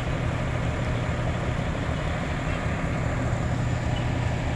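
Fire engine's diesel engine running steadily, a low even hum.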